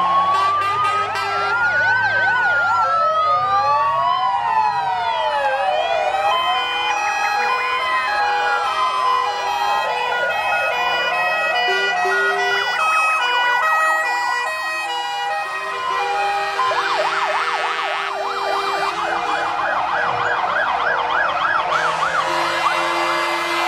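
Several fire engine sirens sounding together as the trucks pass in a column: a slow rising-and-falling wail, fast sweeping yelps and a stepped two-tone hi-lo pattern overlap, with a rapid warble taking over in the last several seconds.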